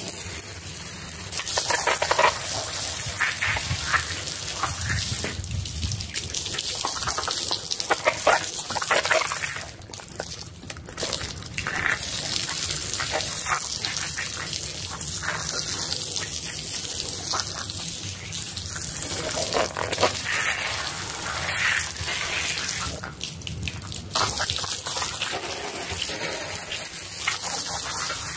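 Pressure-washer jet of water spraying onto a small wet rug, a steady hissing gush that breaks off briefly about ten seconds in and again about twenty-three seconds in.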